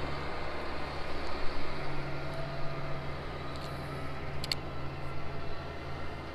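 Farm tractor engine running steadily, a low drone, with a couple of brief clicks about four and a half seconds in.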